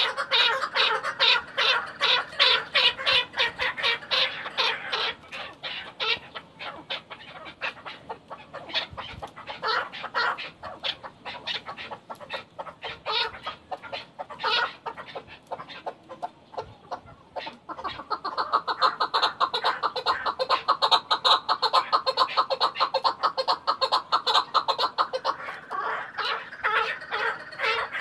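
Chukar partridge calling: a long, rapid series of clucking 'chuk' notes, several a second. Loud at first, it fades for a while in the middle and swells again about two-thirds of the way through.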